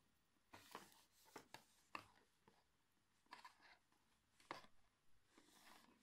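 Faint scattered clicks and rustles of handling as a small amplifier circuit board and its thin speaker wires are moved and set down on a block.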